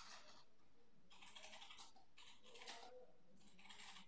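Faint clicking and light metallic scraping from handling the hydraulic relief valve's parts: its upper section being seated on the valve block and a hex key being fitted into its screws. The sounds come in four short clusters.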